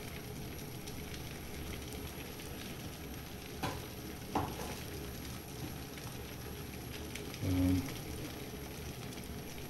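Large pot of bean soup at a rolling boil, bubbling and hissing steadily, with two faint clicks around the middle and a short low hum about three-quarters of the way through.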